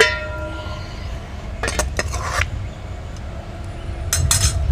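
Metal cookware and utensils: a sharp clink at the start that rings on for about a second, then two short scraping clatters, about two seconds and four seconds in, over a low steady hum.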